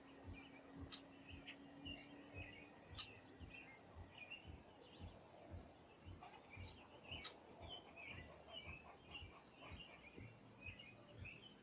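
Faint songbirds chirping and twittering in quick short notes, busier in the second half, with a few sharp clicks and soft low knocks.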